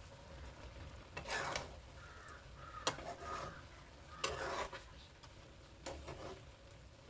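A spatula scraping and stirring prawns and crabs around a metal wok in about four separate strokes, roughly a second and a half apart.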